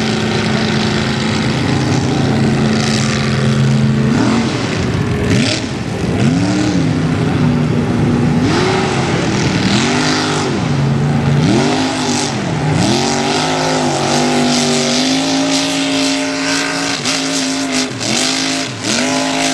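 Lifted off-road truck's engine running loud, holding a steady pitch at first, then revving up and down over and over, then holding steady again, with a few quick blips of the throttle near the end.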